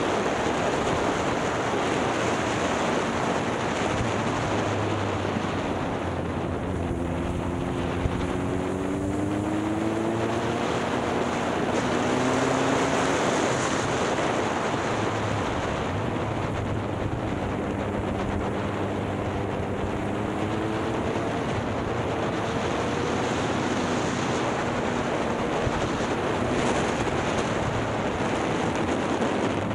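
Motorcycle engine running under way, nearly buried in heavy wind rushing over the microphone. The engine note rises twice as the bike accelerates.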